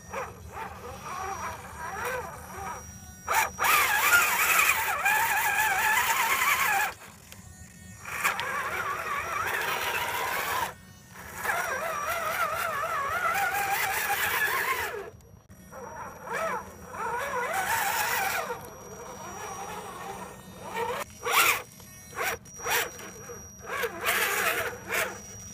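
Electric motor and gearbox of an RC4WD Trail Finder 2 scale crawler whining under throttle as it churns through mud. The whine comes in bursts of a few seconds, its pitch wavering up and down with the throttle and load, with short pauses between, then several brief blips of throttle near the end.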